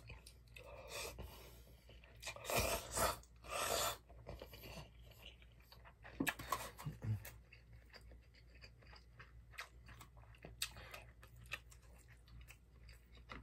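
A person eating jjapaghetti noodles with chopsticks close to the microphone: a few noisy slurps in the first four seconds, then chewing with small wet clicks.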